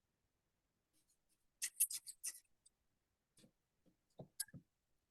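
Faint, brief scratchy strokes on paper, clustered about two seconds in, followed by a few soft low knocks, heard over a video call.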